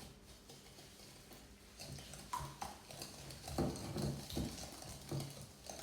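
Eggs, sugar and butter being mixed by hand in a bowl: soft, irregular knocks and scrapes of the utensil against the bowl.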